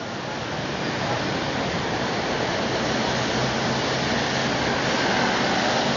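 Steady rushing roar of busy city road traffic, swelling slightly over the first couple of seconds and then holding even.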